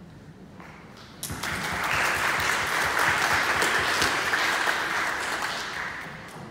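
Audience applauding. It breaks out about a second in, holds strong, then thins out and fades near the end.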